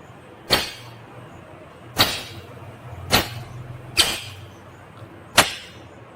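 Indian ringneck parakeet giving five short, sharp screeches, spaced about one to one and a half seconds apart.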